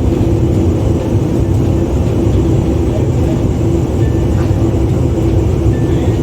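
Steady drone of engine and airflow noise inside the cabin of an Airbus A321 during its descent, with a faint steady hum over a deep rumble.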